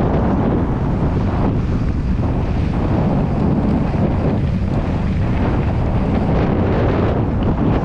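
Steady, loud wind buffeting on a bike-mounted action camera's microphone, mixed with the rumble of a mountain bike's tyres rolling fast down a dirt trail.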